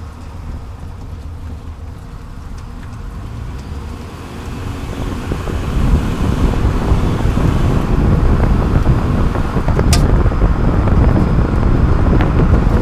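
Road and tyre noise with wind on the microphone from under a moving Toyota Prius. It grows louder about five seconds in, and there is a single short sharp click about ten seconds in.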